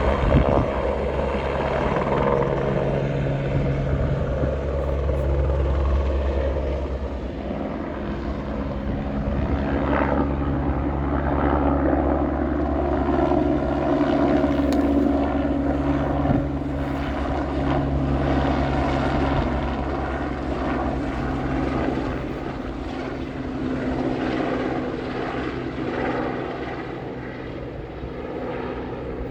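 A steady, low engine drone that holds its pitch, easing off slightly near the end.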